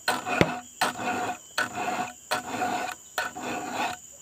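A round chainsaw file rasps across the cutter teeth of a chainsaw chain to sharpen it. There are about five strokes, roughly one a second, each with a sharp click, and they stop just before the end.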